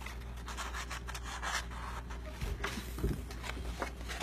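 Cardstock paper petals rubbing and scraping under hands as they are handled and slid across a table, irregular rustling over a steady low hum.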